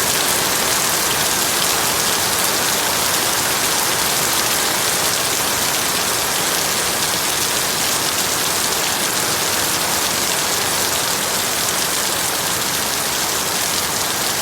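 Heavy rain falling steadily: a loud, even hiss with no break.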